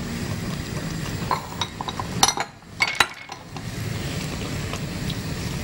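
Metal fork clinking and scraping against a stone-coated saucepan as noodles are tossed and folded into a thick sauce. There is a cluster of clinks in the middle, over a steady low rushing noise.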